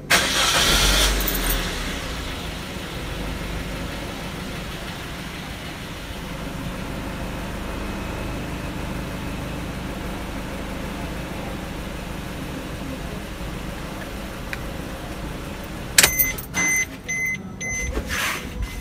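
Suzuki car engine started with the key just after an oil change: a short loud burst as the starter cranks and the engine catches, then a steady idle. Near the end, clicks of the driver's door opening and a few short chime beeps come over the idle.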